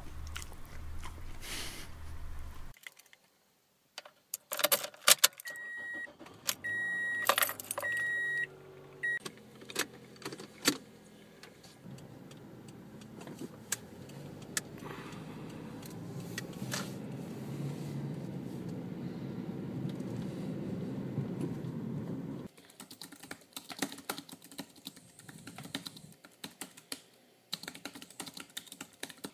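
Keys jangling, then a car's chime beeping at a steady pace before the engine starts and runs as the car drives; the engine sound cuts off and is followed by fast typing on a computer keyboard.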